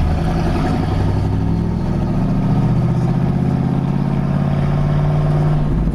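Ford 460 big-block V8 with straight-piped dual exhaust and no mufflers or cats, heard from inside the cab while driving. It pulls steadily with the pitch rising for a few seconds, then the note drops away near the end.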